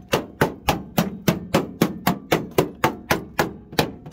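A hammer rapping quickly and repeatedly on the new seam-welded sheet-steel floor panel of a Ford Cortina Mk4's footwell, about four blows a second, each with a short metallic ring. This tests the welded repair, which sounds solid.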